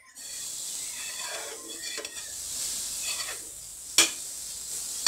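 Pancake frying in hot butter in a pan, a steady sizzle, with the metal spoon clicking against the pan a few times, most sharply about four seconds in.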